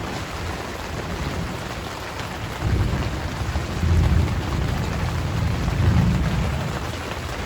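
Steady pouring rain with thunder rumbling through it, the rumble swelling loudest about three, four and six seconds in.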